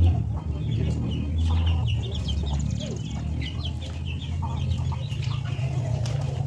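A flock of chickens clucking and calling, many short overlapping calls without a break, over a steady low hum.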